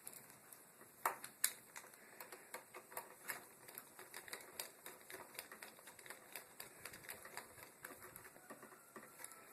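Screwdriver working the brass and silver terminal screws of an electrical outlet: a string of faint, irregular small metal clicks and ticks, with a couple of louder clicks about a second in.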